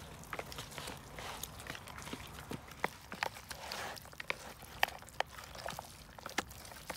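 Hands mixing raw lamb chunks in a wet marinade in a bowl, making irregular short clicks and smacks.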